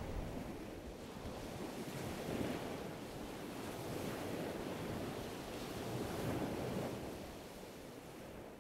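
Waves washing on open water, swelling and ebbing, with some wind buffeting the microphone; the sound fades down near the end.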